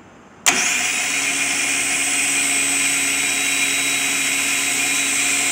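Car starter motor spinning unloaded on a test bench: it switches on sharply about half a second in and runs at a steady electric-motor whine with a high-pitched tone on top.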